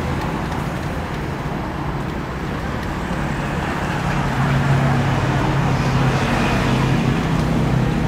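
Road traffic noise: a steady hum of passing vehicles, with a vehicle engine growing louder about halfway through.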